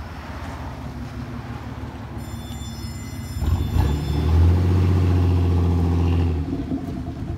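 2006 GMC Sierra's 4.3-litre V6 running through a Flowmaster Super 10 chambered muffler with a side-exit dual tip. It idles with a deep, low note, is revved up about three and a half seconds in, holds the higher revs for about two seconds, then drops back to idle near the end.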